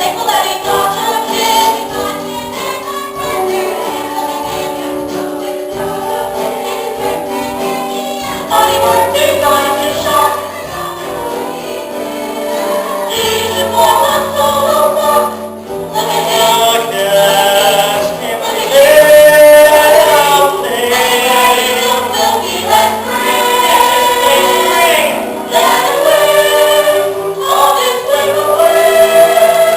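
A stage cast singing a musical-theatre ensemble number together over musical accompaniment, growing louder about two-thirds of the way through.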